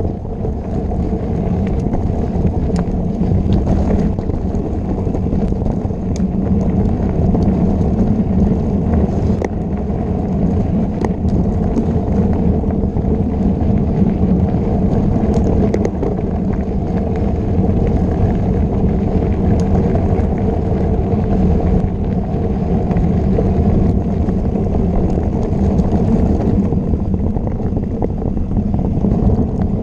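Mountain bike ridden fast on a dirt trail, heard from a camera mounted on the bike or rider: a steady low rumble of tyres on dirt and wind, with scattered clicks and rattles from bumps.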